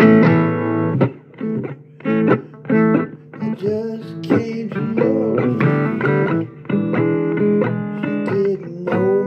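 Blues guitar playing an instrumental passage of plucked notes, some of them bent up and down in pitch, over a steady backing.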